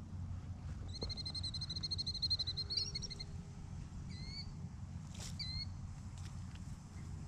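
A bird calling: one long, even whistled note of about two seconds that twists up at its end, then two short hooked chirps. Under it is a low rumble of wind on the microphone, with one faint tick about five seconds in.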